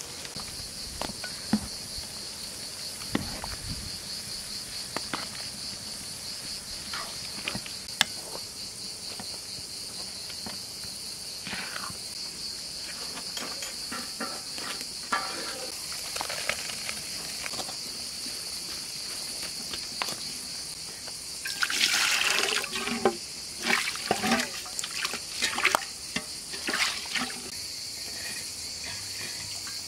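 Insects chirring steadily in a high, finely pulsing band, with scattered clicks of metal pots. About 22 seconds in, water gushes as the parboiled rice for pilaf is drained out of the pot, followed by a few shorter splashes.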